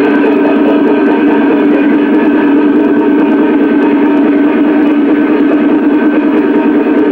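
A Peking opera wind instrument holds one long, steady note with no break, as in a troop-movement scene.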